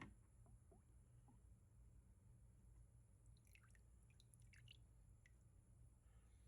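Near silence: a low room hum, with one sharp click at the start and a few faint small clicks about three to five seconds in.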